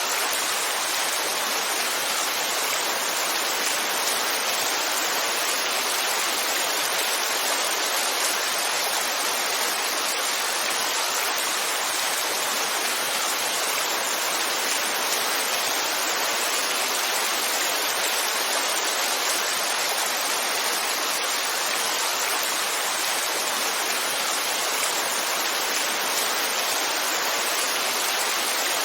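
Heavy rain falling steadily: a dense, even hiss with no distinct drops, thunder or changes.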